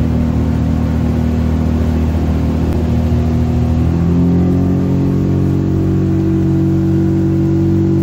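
Tohatsu MFS60 three-cylinder four-stroke outboard running under way at speed. About four seconds in, its pitch climbs as the revs pick up, then it holds steady at the higher revs.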